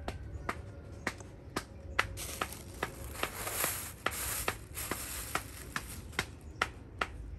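Regular sharp clicking, about two and a half clicks a second, with a stretch of rustling from about two to five seconds in.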